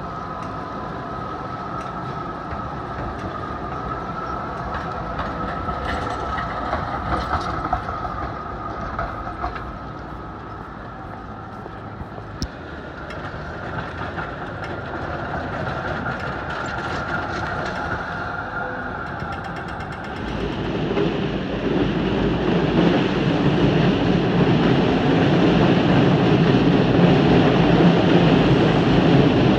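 Melbourne trams running along city streets, with a steady high motor whine and scattered clicks from the wheels on the rails. About twenty seconds in, this gives way suddenly to a louder, steady rumble.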